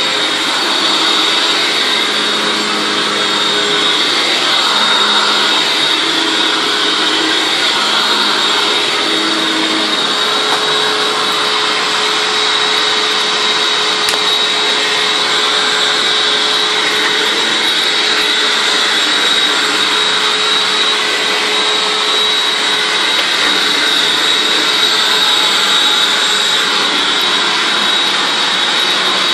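Hoover WindTunnel Anniversary Edition self-propelled upright vacuum cleaner running steadily: a rush of air with a constant high whine.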